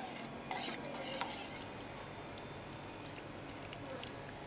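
Sauce being poured over a steaming fish: faint liquid trickling with a few light clicks, mostly in the first second or so.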